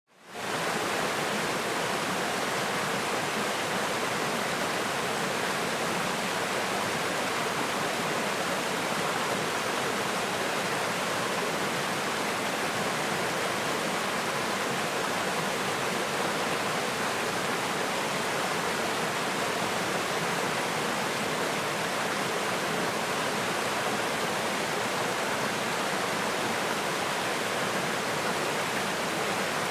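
Small forest stream rushing and splashing over rocks, a steady, even water noise that fades in at the very start.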